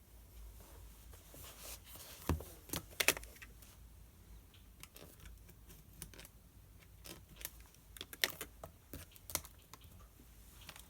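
Desk study sounds: irregular sharp clicks and taps, one with a soft thump, with a brief light rustle, from a pen and paper being handled.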